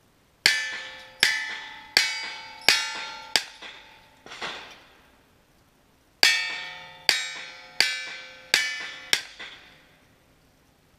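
Two strings of five gunshots, each hit answered by a steel plate target ringing and dying away. The strings are about two seconds apart, with a softer clatter between them.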